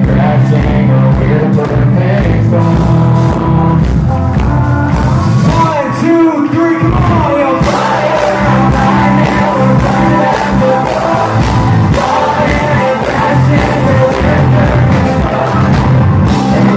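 Live country band playing loud: a male lead singer over electric bass, drums and guitar. About six seconds in the bass and drums drop back for a moment while the voice glides on, then the full band comes back in.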